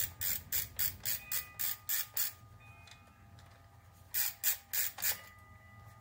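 Ratcheting screwdriver clicking as it backs out the screw that holds the Roomba's side brush: a run of about nine quick clicks, a pause, then four more about four seconds in.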